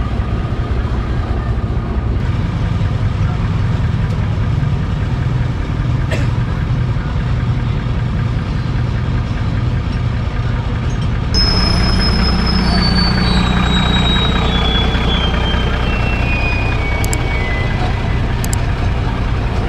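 Crane tow truck's engine idling steadily. About halfway in, a string of short high tones steps down in pitch over several seconds.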